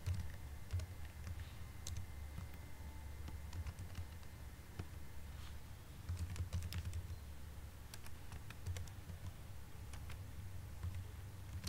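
Computer keyboard keystrokes, typed slowly and unevenly as single clicks with pauses, over a steady low hum.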